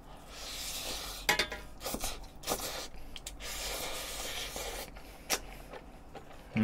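Close-miked chewing of a big mouthful of okonomiyaki: soft wet mouth noise broken by a few sharp smacking clicks.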